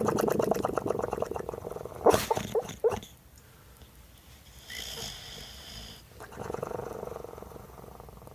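Boxer dog snoring. A loud fluttering snore runs into a few sharp snorts about two seconds in. After a pause comes a faint whistle, then a second, quieter fluttering snore.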